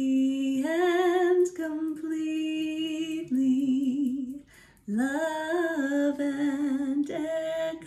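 A woman singing a slow affirmation line, holding long notes with vibrato. There is a brief break about four and a half seconds in.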